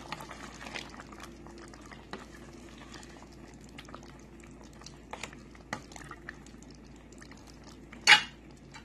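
A steel stockpot of ground beef and vegetable stew bubbling at a simmer while a wooden spoon stirs it, with scattered small clicks and scrapes. About eight seconds in comes a single short, loud knock.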